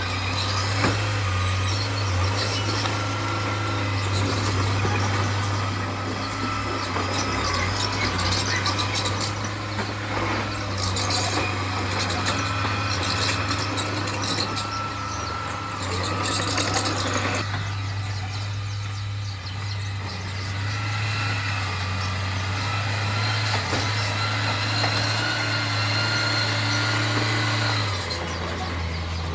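Heavy diesel earthmoving machinery at work: a steady engine drone with scattered metallic clanks and squeaks, the engine note changing near the end.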